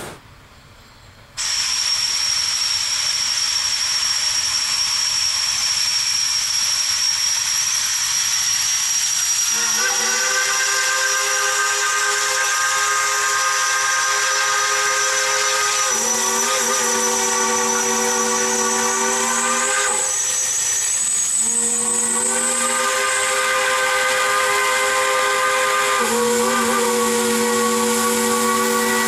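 Steam locomotive's chime whistle blowing a long series of blasts, starting about ten seconds in. It sounds several notes at once, and the chord changes between blasts, with one brief pause about two-thirds of the way through. Under it runs a steady loud hiss that starts after a quiet first second.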